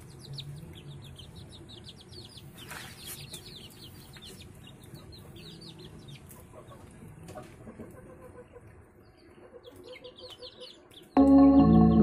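Young chickens peeping in quick series of short, high, falling calls, with soft low clucking, as they feed. Background music comes in loudly near the end.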